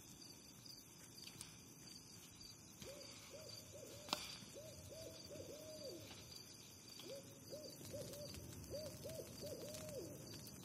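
Owl hooting faintly in two runs of short rising-and-falling hoots, each run ending in a longer falling note. A single sharp click comes about four seconds in.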